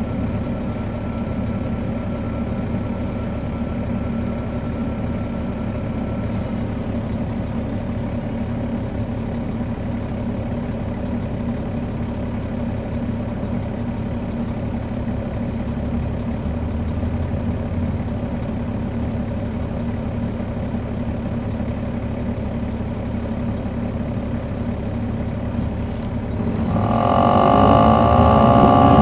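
Caterpillar C13 diesel engine of an MCI D4500CL coach, heard from inside the bus, running steadily. Near the end it revs up and gets much louder as the bus accelerates.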